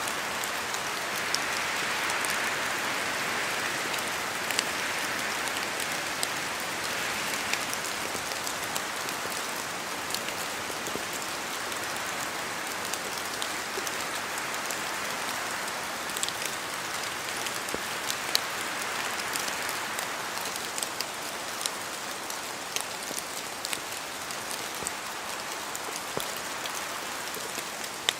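Steady rain falling in a forest, an even hiss with many sharp individual drops pattering down from the trees.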